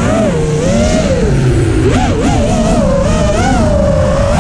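FPV racing quadcopter's brushless motors whining, the pitch swooping up and down with the throttle, with quick rises about two seconds in and again at the end. A rough rush of wind runs underneath.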